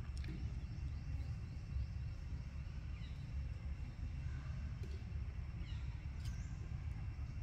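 Outdoor ambience: a steady low rumble with faint high chirps, a couple of them falling in pitch about three and six seconds in.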